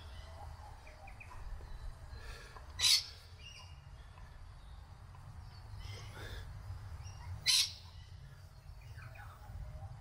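Birds calling: a short, loud, high call about three seconds in and again about seven and a half seconds in, with fainter chirps between, over a low steady rumble.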